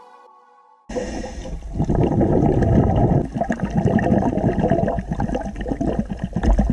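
Background music fades out, then about a second in the camera's own underwater sound starts suddenly: water bubbling and gurgling in a dense, crackly rush.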